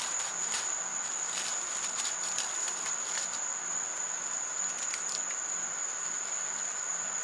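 Steady high-pitched trill of evening insects, with scattered light rustles and snaps of bean vines and leaves as pods are picked from a trellis.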